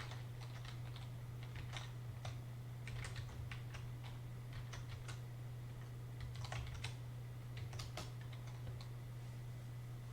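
Typing on a computer keyboard: irregular runs of key clicks, with a steady low hum underneath.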